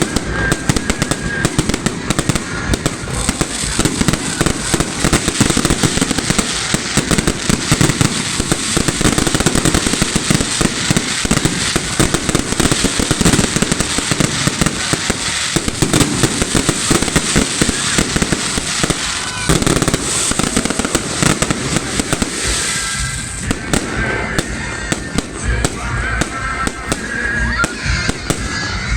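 A fireworks salute going off: a dense, continuous run of bangs and crackles, many shells bursting in quick succession.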